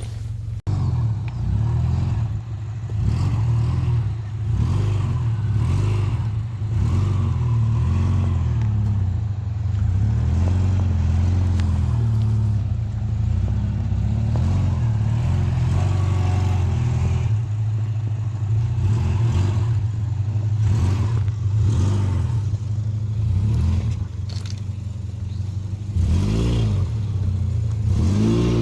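Car engine running at low revs while the car is driven slowly, its note rising and falling a little near the end.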